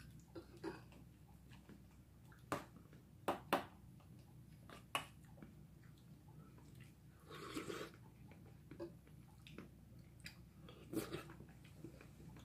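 Metal spoon clinking and scraping against stainless steel bowls during a meal, a handful of sharp clinks spread out, with quiet chewing between them and one short noisy sound about halfway through.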